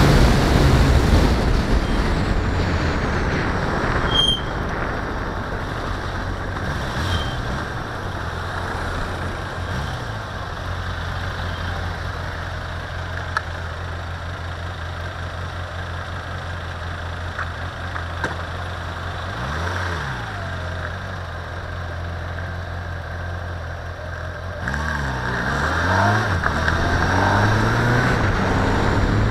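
A car driving in town: road and wind noise easing as it slows down, then its engine idling steadily for several seconds while stopped, then the engine pitch rising and falling as it pulls away and accelerates about three-quarters of the way through.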